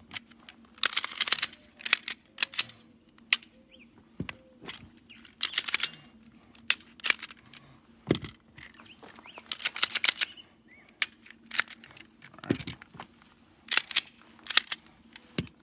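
Glock pistols being handled and checked clear: slides racked and metal parts clicking and clattering, in several quick bursts of clicks with single sharp clicks between.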